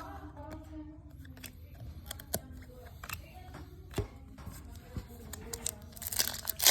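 Trading cards handled and flipped, with scattered sharp clicks. About six seconds in, a pack's foil wrapper crackles loudly as it is torn open.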